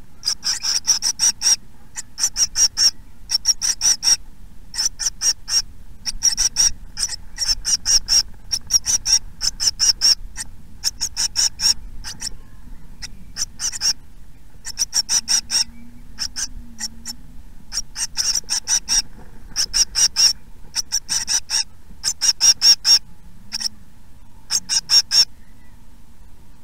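Tit nestlings begging in a nest box: bursts of rapid, high-pitched calls, roughly one burst a second.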